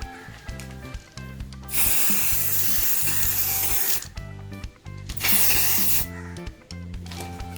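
Aerosol spray can hissing in two bursts, a long one of about two seconds and a shorter one of under a second, over background music with a steady beat.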